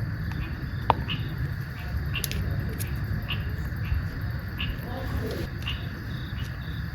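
Short insect chirps repeating roughly twice a second over a steady low rumble, with one sharp click about a second in.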